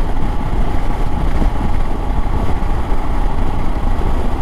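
Royal Enfield Himalayan single-cylinder motorcycle cruising at highway speed, a steady engine drone buried in heavy wind rumble on the rider's microphone.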